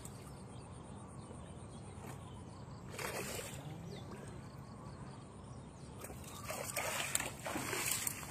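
Hands splashing in shallow ditch water, with one louder splash about three seconds in. Near the end, a run of rustling and knocks from grass and vegetation being pushed through.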